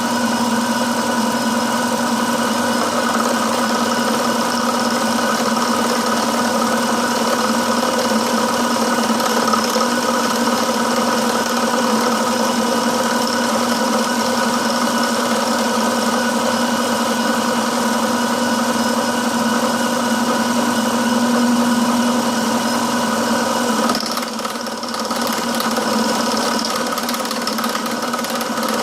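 Milling machine motor and spindle running steadily, a loud even drone with a constant hum and whine, dipping briefly in level about 24 seconds in.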